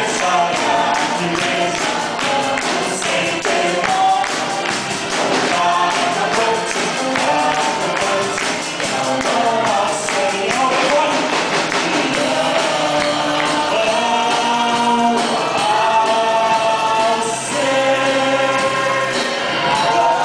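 Live worship song played by a band: strummed acoustic guitars keeping a steady rhythm and violins, with a group of voices singing along.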